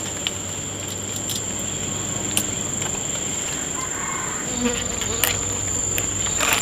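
Insects calling in the background, a steady unbroken high-pitched drone, with scattered light clicks over it.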